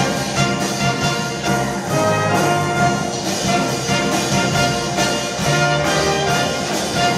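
Live band with brass playing an instrumental passage at a steady beat, with no singing.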